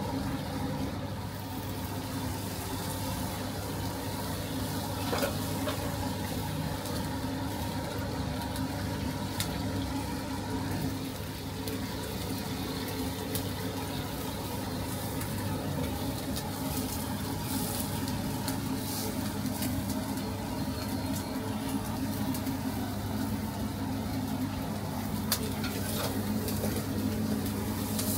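Chicken sizzling as it grills over charcoal, over a steady low hum, with a few scattered clicks.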